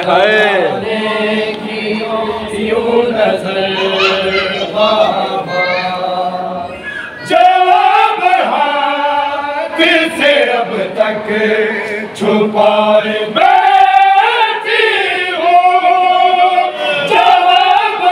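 A group of men chanting a noha, a Shia lament, led by a noha khwan. The voices come in louder about seven seconds in.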